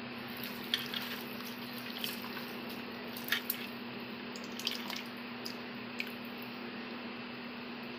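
Wet squelching and clicking of a hand mixing raw chicken pieces with yogurt and chilli powder in a steel bowl: several short sharp squelches scattered through, over a steady low hum.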